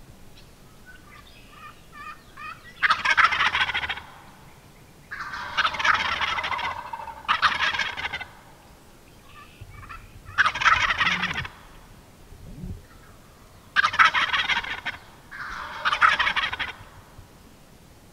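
Wild turkey gobbling over and over: about six loud rattling gobbles, each about a second long, with a few fainter gobbles in between.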